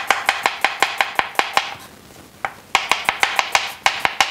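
Chef's knife thinly slicing a red onion on a wooden cutting board: quick, even knife strikes on the board, about five a second, pausing briefly about two seconds in before the rhythm picks up again.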